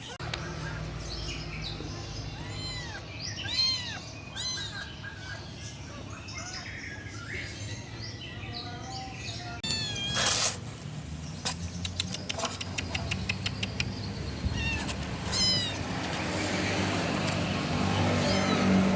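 Kittens mewing again and again in short, high calls that rise and fall in pitch, several at different pitches. About halfway through there is a brief loud rush of noise, followed by rapid clicking and a low rumble that grows near the end.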